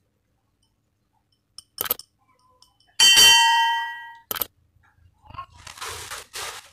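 Metal parts of a Lieyuwang HD6000 spinning fishing reel being handled: a small click, then one bright metallic ding about three seconds in that rings on for about a second, another click, and near the end plastic bag crinkling.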